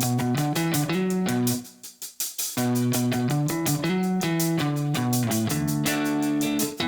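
Background music led by guitar with bass and a steady beat, dropping out briefly about two seconds in.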